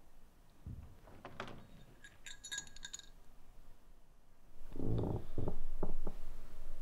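A faint, high metallic chime of several tinkling notes about two to three seconds in, then, from about two-thirds of the way through, a louder low rumbling sound in uneven pulses.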